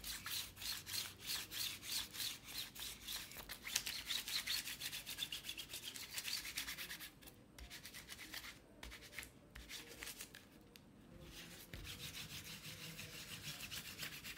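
Distress ink pad rubbed over the edge of a canvas in quick back-and-forth strokes, several a second, a dry scrubbing with short pauses now and then.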